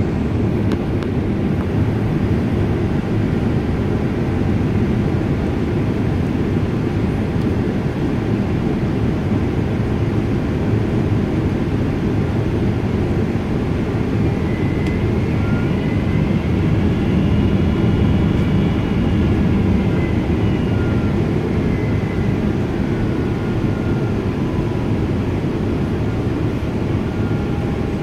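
Boeing 777-200 jet airliner's engines and airflow, a steady low rumble throughout, with a whine that comes in about halfway through, rises and then falls away.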